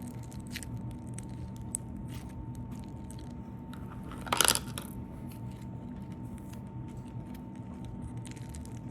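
Sticky, crunchy slime being kneaded and squeezed by hand, giving small scattered crackles and clicks. There is one louder, brief crackling squish about four and a half seconds in.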